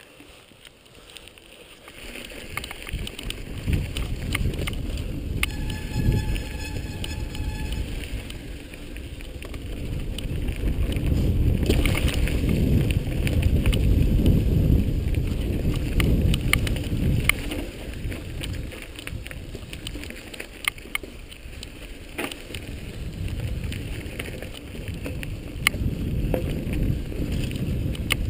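Mountain bike rolling down a dirt trail: wind buffeting the microphone, with the frame and parts rattling and clicking over bumps. It grows loud after the first couple of seconds, and there is a brief high squeal about six seconds in.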